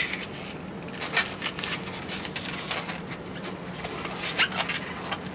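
Inflated 260 latex modelling balloon being handled and twisted, giving a few short, scattered rubbing squeaks.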